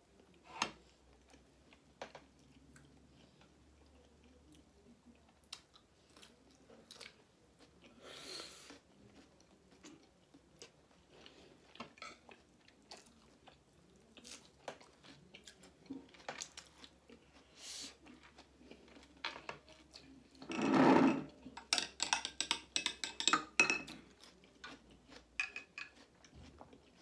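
Close-up chewing of kebab and rice, with scattered light clicks of spoon and fork on plates. A louder, busier run of eating and cutlery sounds comes about three-quarters of the way through.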